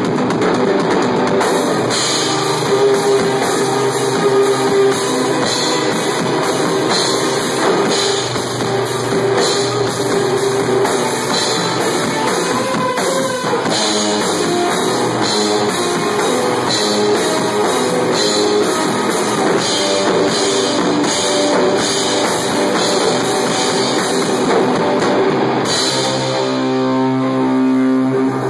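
Instrumental rock played live by an electric guitar and drum kit, recorded on a phone: guitar riffing over steady drumming with regular cymbal crashes. Near the end the cymbals fall away and the guitar's held notes stand out.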